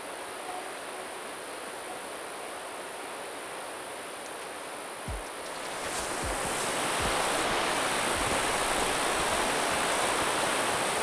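Steady rush of the Teton River's flowing water, growing louder about six seconds in.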